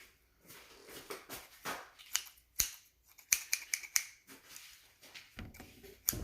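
Scissors clicking open and shut several times, sharp snipping clicks bunched together in the middle.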